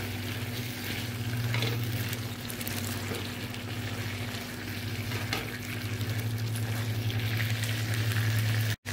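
Masala-coated liver (kaleji) sizzling in oil in a non-stick pan and being stir-fried, the spatula scraping and knocking against the pan now and then, over a steady low hum. The liquid is cooking off during the bhuna stage, and the oil is starting to separate. The sound cuts out for an instant near the end.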